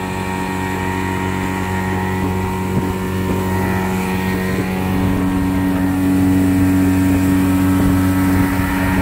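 Speedboat outboard motor running at speed, a steady engine drone over a rushing noise. A higher engine tone grows stronger and the sound gets a little louder about halfway through.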